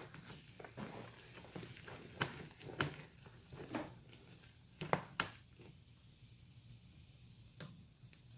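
Utensil and containers handled over a mixing bowl while glue slime is activated with borax and stirred: scattered sharp clicks and knocks, the loudest two pairs about two to three and five seconds in, quieter after that.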